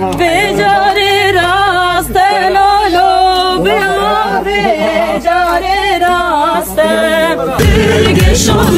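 A single voice singing a wavering, ornamented melody with vibrato over a low steady drone; near the end a drum beat comes in under the music.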